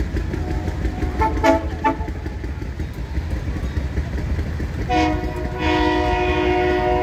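Railroad speeder's horn: a few short toots about a second in, then one long, chord-like blast from about five seconds in, over a steady low rumble of the motorcar running along the rails.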